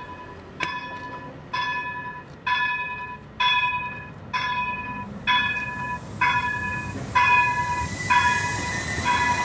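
O-Train's electronic warning bell ringing as the train arrives, a looped ping about once a second that grows louder as it draws near. The looped electronic bell is like the e-bells on modern freight locomotives. Near the end, the noise of the train pulling in and a steady high whine join it.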